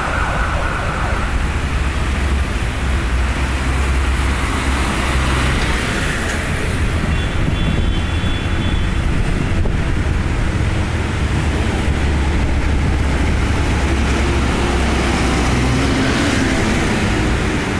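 Diesel engines of large farm tractors running in a slow convoy as they approach, a steady low rumble mixed with street traffic. A brief high siren-like tone sounds right at the start.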